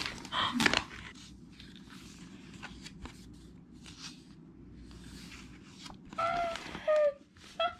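Tissue paper crinkling and rustling as an album is pulled out of its wrapping, loudest in the first second, followed by quieter handling of a photobook with soft page and paper rustles. A brief voice sound comes about six seconds in.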